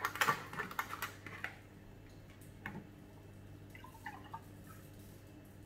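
Plastic cap of a milk jug being twisted open, a quick run of clicks and crackles in the first second and a half, followed by a few faint ticks and small handling sounds.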